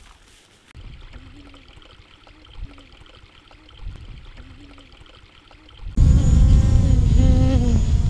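Quiet background with a few faint, brief sounds, then, about six seconds in, strong wind suddenly buffets the microphone: a loud, heavy rumble with a wavering tone above it.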